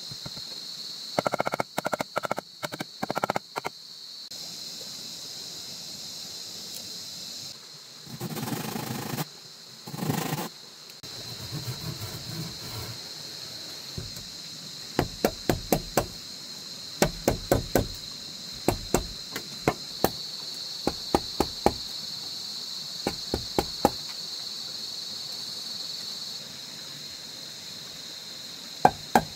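Hammer blows driving nails into wood, in quick runs of strikes with pauses between them; the first few blows ring. A couple of brief scraping sounds come in the middle, and a steady high insect drone sits underneath.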